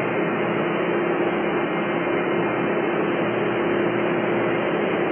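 Steady industrial machinery drone: an even rushing noise with a constant low hum in it, unchanging throughout.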